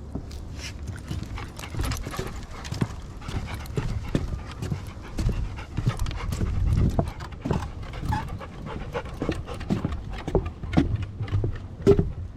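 A large dog panting on a walk, with irregular footsteps and clicks throughout.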